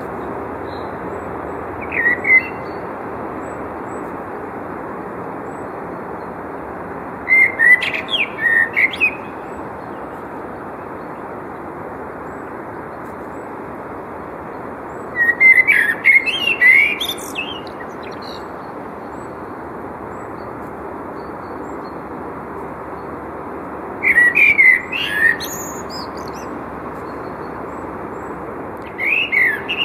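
Male common blackbird singing: separate warbled phrases about every eight seconds, each ending in thinner, higher twittering notes, over a steady background rush.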